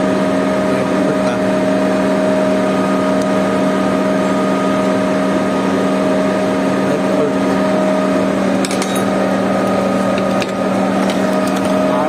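Putzmeister 49-5 concrete pump truck running at a steady speed: a loud, constant mechanical drone with a steady hum from its engine and hydraulic pump. A few light clicks come near the end.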